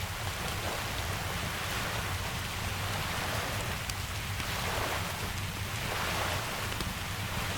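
Steady rain falling, an even hiss over a low rumble, with faint scattered crackles from a wood fire.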